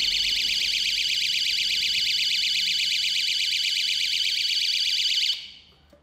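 Plug-in 220 V power-failure alarm sounding its loud, high-pitched electronic siren with a fast warble, set off because mains power has been cut at the breaker. It cuts off suddenly about five seconds in.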